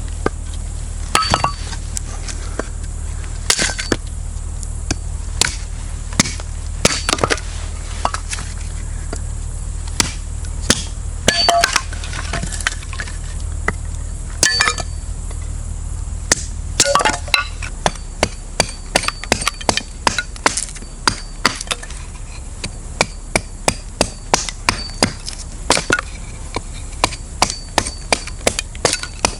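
A hatchet chopping dry wood into pieces for a campfire: sharp, irregular strikes that become quicker and more regular, about two a second, in the second half.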